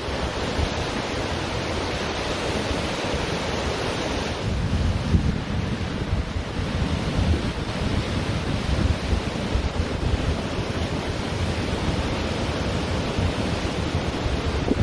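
Ocean surf washing on a beach: a steady rushing hiss of waves, with wind buffeting the microphone as a low, fluttering rumble.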